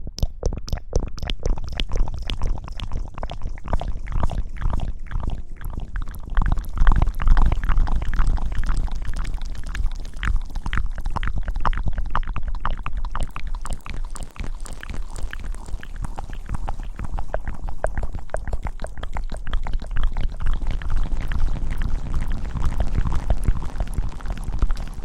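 Close-miked ASMR rubbing: a dense run of rapid wet crackles and squishes over a low rumble, the kind made by rustling or lathering right against the microphone.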